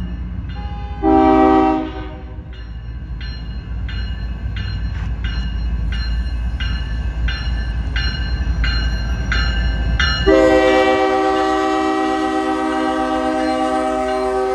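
Lead diesel locomotive of a BNSF freight train passing close, its engine and wheels giving a steady low rumble, while a bell dings about twice a second. The locomotive's multi-chime air horn sounds a short blast about a second in and a long, loud blast from about ten seconds in.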